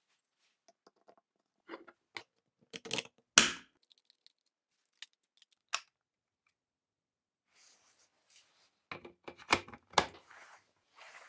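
Plastic clicks and knocks from a Milwaukee M18 battery pack's case being handled. A few clicks and one sharp knock come in the first few seconds as the cells go into the case. After a quiet stretch, a quick run of clicks near the end comes as the pack is slid onto its charger.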